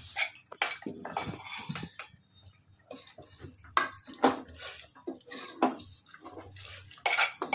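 A wooden spatula stirring cluster beans and mutton curry in an aluminium pressure cooker. It makes irregular wet scrapes and knocks against the pot.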